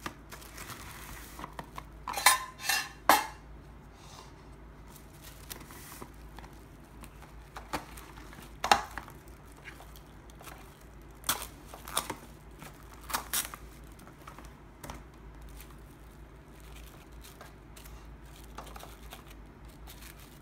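Plastic cling wrap being pulled from its box and pressed over a stainless steel tin of cherry tomatoes: soft rustling with about half a dozen sharp clicks and knocks of the wrap box and metal tin, the loudest a couple of seconds in and again around the middle.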